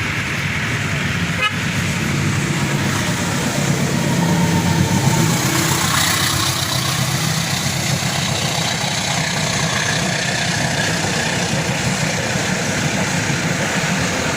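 Road traffic close by: motorbike and car engines running as vehicles pass slowly, steady throughout.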